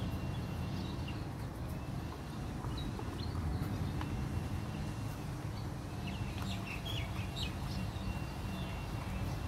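Birds calling in the background, including a thin held whistle and a few short chirps, over a steady low hum.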